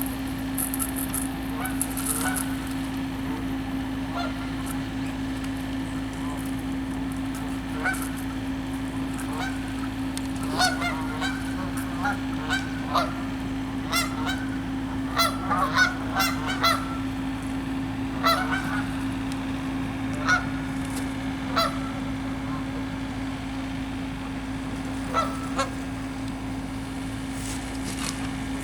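Canada geese honking: short single honks now and then, coming thickest about halfway through, over a steady low hum.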